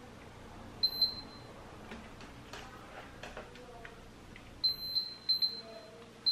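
Digital multimeter giving short, high-pitched beeps, about four of them, mostly near the end, as its test probes touch points on an LCD monitor's power-supply board during a diode check.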